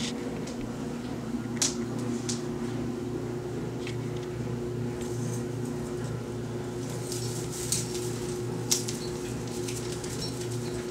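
A steady low hum runs throughout, with a few brief sharp rustles and clicks, about five scattered through, from a kitten moving among the branches and ornaments of a Christmas tree.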